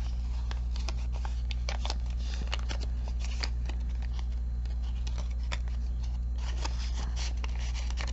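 Paper banknotes and small paper envelopes being handled: irregular soft crinkles and rustles as bills are folded and slid in. Under them runs a steady low electrical hum.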